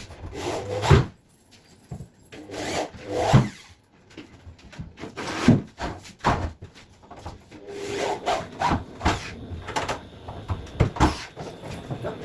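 Wood being worked by hand: a run of irregular strokes of a hand tool on wood, each swelling and ending sharply, with short pauses between.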